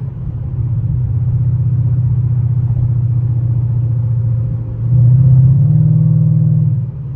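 Ford Mustang's engine and exhaust heard from inside the cabin, a steady low drone while cruising. From about five seconds in it gets louder and its pitch steps up as the throttle opens, then it drops back off just before the end.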